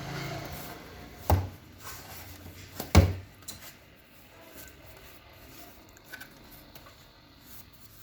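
Two sharp knocks, the second louder, as of something set down on a hard surface, followed by faint small clicks and rustles of handling.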